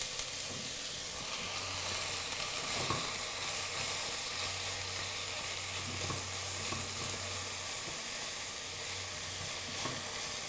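Chopped onions frying in vegetable oil in a pan, a steady sizzle on lowered heat, with a few light knocks of the onions being stirred.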